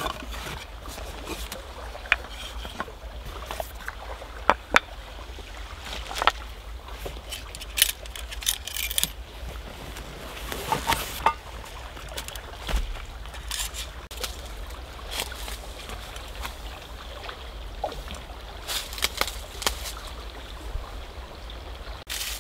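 Camping gear being handled at an open backpack: scattered clicks, knocks and rustles, over a steady rush of flowing stream water.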